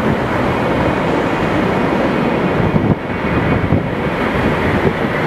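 Steady roar of an Airbus A380's engines as the jet rolls out down the runway after landing, with wind buffeting the microphone over it and a faint steady whine on top.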